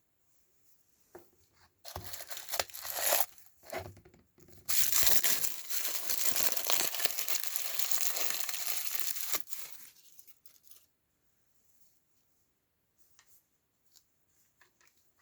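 Plastic wrapping of an L.O.L. Surprise! Boys toy being torn open and crinkled: a few short rips about two seconds in, then a long continuous tearing and crinkling that stops near the ten-second mark, followed by a few faint clicks.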